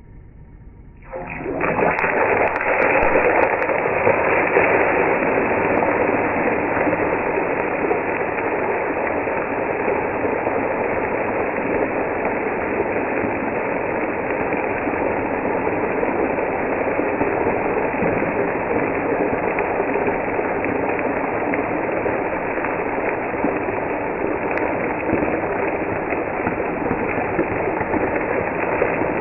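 Marinated fish steak frying in hot oil in a kadai: a loud sizzle starts about a second in as the piece goes into the oil, then keeps on steadily.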